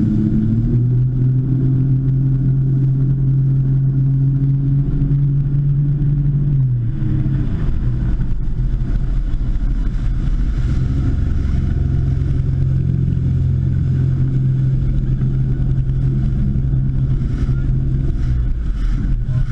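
Ski boat's inboard engine running at speed while towing a tube, over the rush of wind and water. The engine note rises about a second in, drops briefly around seven seconds as the throttle eases, and picks back up a few seconds later.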